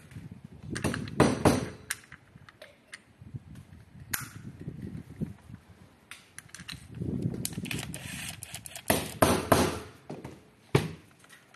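Parts of a head's side-plate assembly handled and fitted by gloved hands: sharp knocks and clicks of hard plastic and metal parts, with a stretch of rubbing and scraping in between.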